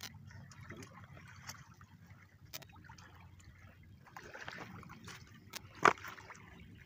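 Faint trickling and lapping of river water at a rocky bank, with scattered small clicks and rustles of movement over the rocks and one sharp knock about six seconds in.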